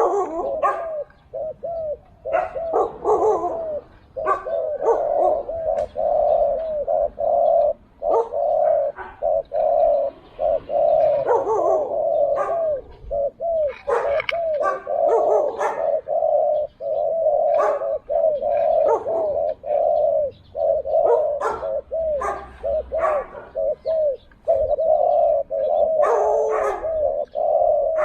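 Spotted doves cooing over and over with hardly a break, the coos overlapping, with scattered sharp clicks among them.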